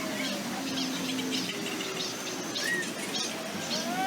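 Small birds chirping in repeated short high notes over a steady low background noise.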